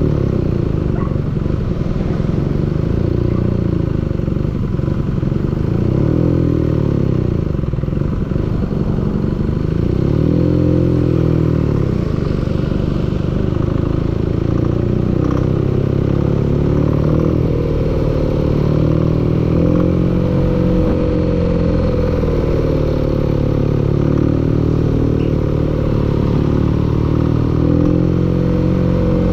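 An engine running steadily with a clattering knock, the engine knock the uploader set out to record.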